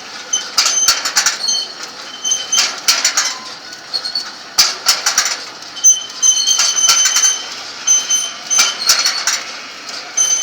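Jean Tinguely's Heureka, a metal kinetic sculpture, running: its moving metal parts scrape and squeak in irregular clusters of sharp clicks and short high squeals, one cluster about every second or so.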